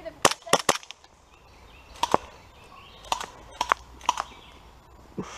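Airsoft pistol shots, sharp snapping pops. Three come in quick succession at the start, then more follow in pairs and singles over the next few seconds.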